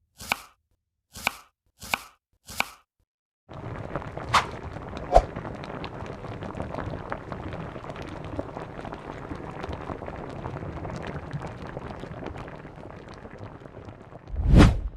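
Four short sharp clicks about a second apart, then a steady crackling hiss of food frying in a pan with a few clinks, ending in a loud thump.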